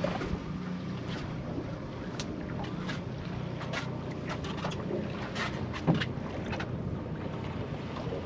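Wind buffeting the microphone over a low steady hum aboard a small fishing boat, with scattered light clicks and knocks.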